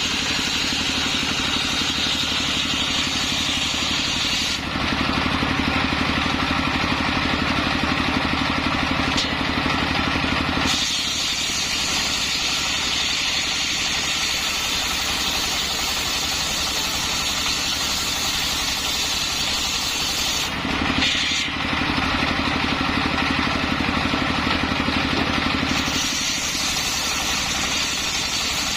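Engine-powered circular saw rig running continuously while sawing coconut-palm wood, its tone shifting several times as the load on the blade changes.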